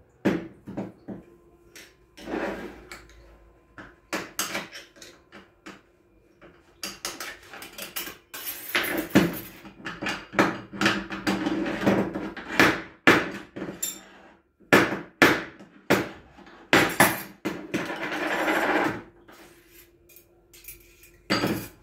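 Metal automatic-transmission parts clinking and clattering as a clutch drum assembly is taken apart by hand on a steel bench. The clatter comes in single knocks, with denser runs about a third of the way in and again near the end.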